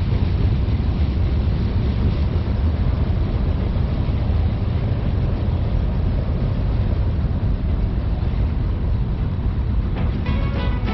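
BNSF manifest freight train rolling past with its rear diesel locomotive (the DPU) going by: a steady, even low rumble. Music comes in about a second before the end.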